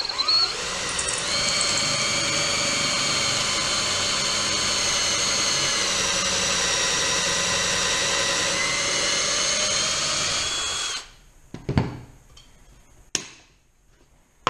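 Porter-Cable drill boring an angled pocket hole through a Kreg pocket-hole jig into wood. Its motor whines steadily for about eleven seconds, then stops. A couple of knocks follow as the jig and clamp are handled.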